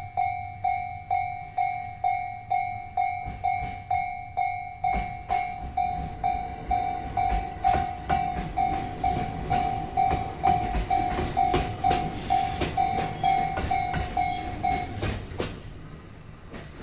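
Japanese railway level-crossing warning bell ringing at about two strikes a second while a JR Yahiko Line train rolls through, its wheels clacking over the rail joints from about five seconds in. The bell stops near the end as the train clears, leaving the fading rumble of the train.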